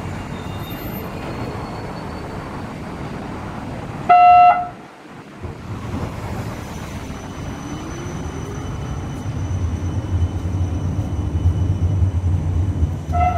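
Supercapacitor tram sounding a short horn toot, then pulling away from the platform with a rising whine and a low running rumble that grows louder. A second short toot comes near the end.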